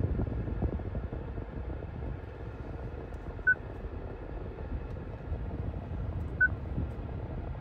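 Two short electronic beeps from a car's touchscreen head unit as it is tapped, about three seconds apart, over the low steady rumble of a 2.4-litre four-cylinder engine idling, heard from inside the cabin.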